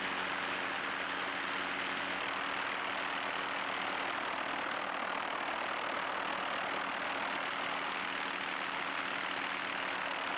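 Steady helicopter noise: an even rushing drone with a low, unchanging engine hum beneath it.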